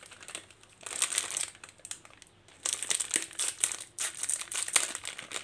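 Plastic biscuit packets crinkling as they are handled and cut open with scissors, in several spells starting about a second in.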